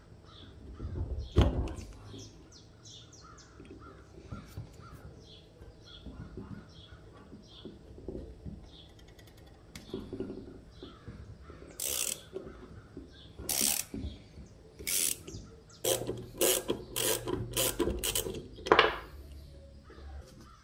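Screwdriver working a rusted screw out of an old airgun's steel frame: metal-on-metal clicks and creaks, in an irregular run of sharp strokes in the second half as the screw turns out.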